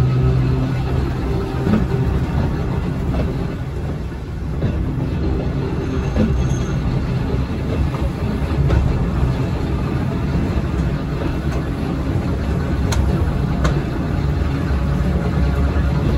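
A Volk's Electric Railway car running along its track, heard from on board: a steady rumble, with a couple of sharp clicks late on.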